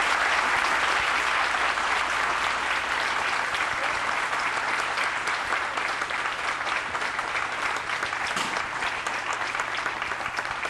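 Audience applauding. The clapping starts suddenly just before this point and carries on steadily for about ten seconds, easing off slightly near the end.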